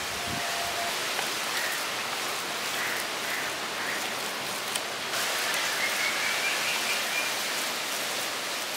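Boiled potatoes being mashed and kneaded by hand with chopped onion, chilli and ground spices, soft squishing under a steady, even hiss.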